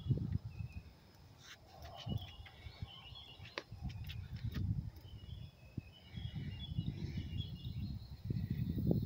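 Small birds chirping repeatedly in the background, over irregular low rumbling noise on the microphone.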